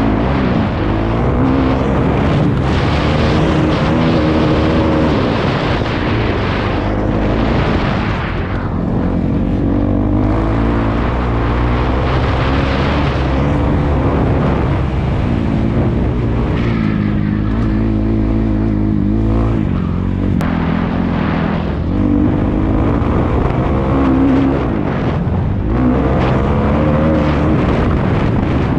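Kawasaki KX250F motocross bike's single-cylinder four-stroke engine revving hard and falling off again and again as it is ridden, easing off briefly several times before pulling again.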